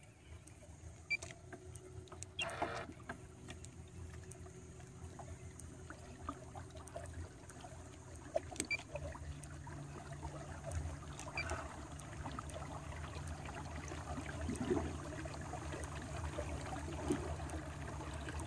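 Haswing Cayman 12-volt, 55 lb-thrust bow-mount electric trolling motor pushing a kayak: a low hum that gets gradually louder as the speed is raised, with a stronger drone coming in about halfway through, and water trickling and lapping along the hull. A few sharp clicks near the start.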